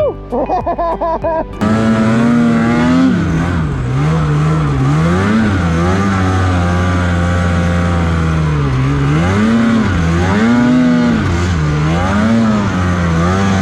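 Snowmobile engine running hard, its pitch rising and falling again and again as the throttle opens and eases off. It starts about a second and a half in, after a brief choppy stretch.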